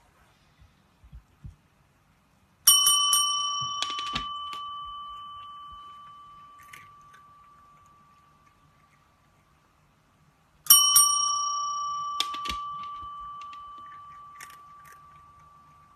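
Chrome desk service bell struck twice by a cat, a few seconds in and again past the middle. Each time it gives a bright ding that rings on and slowly dies away, with a few soft knocks as the bell is bumped again.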